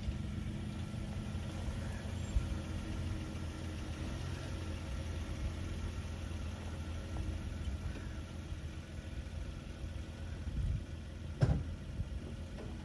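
Nissan Frontier pickup's V6 engine running at low speed as the truck manoeuvres slowly, backing toward a camper trailer, with a single sharp clunk near the end.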